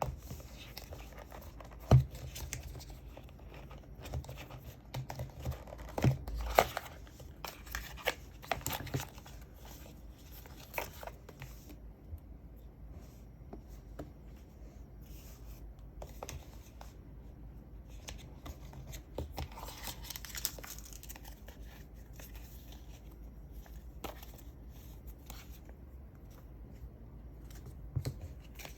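Unboxing handling of Apple TV 4K packaging: tearing and crinkling of wrapping, with scattered clicks and knocks of box and parts being handled. The sharpest knocks come about 2 seconds and 6 seconds in, and a longer stretch of rustling comes about 20 seconds in.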